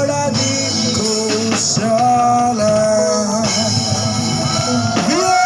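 A song playing, with a held, gliding vocal melody over a guitar and drum accompaniment.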